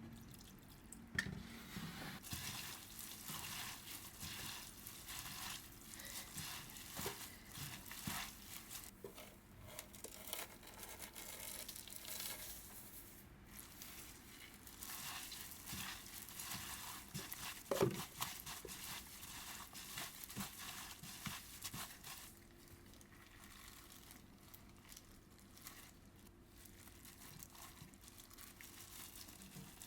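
Food sizzling in a frying pan while being stirred, a steady hiss with scattered clicks of the utensil against the pan and one louder knock about eighteen seconds in.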